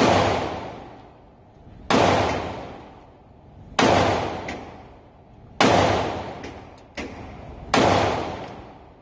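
Handgun shots fired at a slow, steady pace, about one every two seconds, five loud ones and one fainter one. Each shot has a long echoing tail that dies away over about a second and a half.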